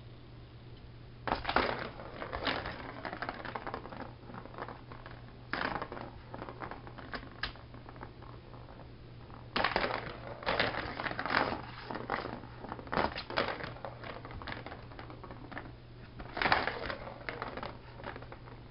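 Ball rattling and rolling around the plastic track of a Turbo Track cat toy as a cat bats it, in several bursts of a second or two with quieter gaps between.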